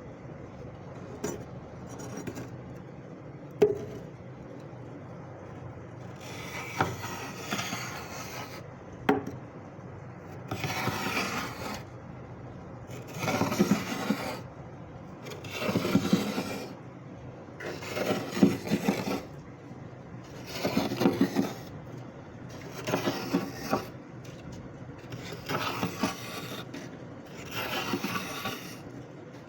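Freezer frost being scraped off in repeated rasping strokes, about nine of them, one every two to three seconds, starting about six seconds in, after a few light knocks.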